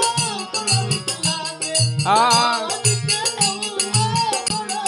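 Devotional folk bhajan music: a harmonium holds the tune over steady low drum beats and rapid clinking of small hand cymbals (manjira), with a voice gliding on a sung note about two seconds in.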